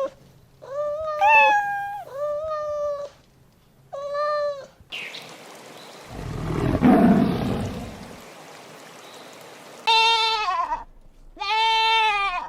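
Domestic cat meowing about five times, in short separate calls, with a louder rough, noisy sound in the middle.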